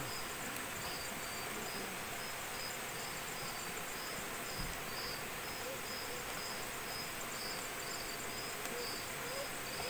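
Crickets chirping in a steady rhythm, about two to three short high chirps a second, over a constant high hiss.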